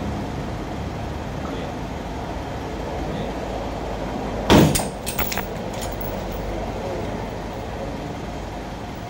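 Chain-and-lever dent puller straining on a pickup's sheet-metal panel: a single sharp pop about halfway through, followed by a few lighter clicks, over steady background noise.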